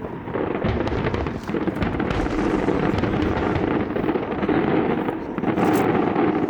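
Aerial fireworks going off in rapid succession, a dense run of bangs and crackles with no pause.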